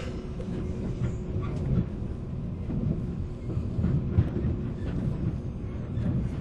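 Riding noise inside a 485 series electric train's motor car (MoHa 485) under way: a steady low rumble of wheels on rail with a faint steady hum and a few sharp clicks from the track.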